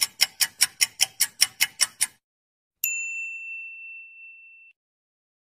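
Typewriter sound effect: keys clacking at an even pace, about six a second, stopping about two seconds in. After a short gap comes a single bell ding that rings out and fades over about two seconds.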